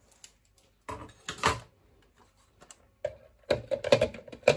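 Hard plastic clicks and knocks from a hand-pull food chopper being loaded and handled, with a louder clatter about a second in and a run of knocks near the end.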